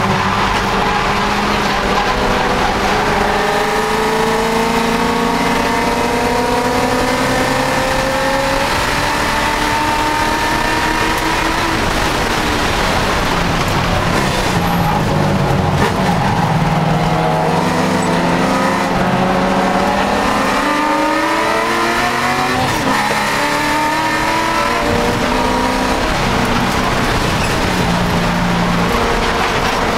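Race car engine heard from inside the cockpit under full racing load, its pitch climbing through long pulls and dropping at each gear change, falling away under braking about halfway through before climbing again. Steady road and wind noise run underneath.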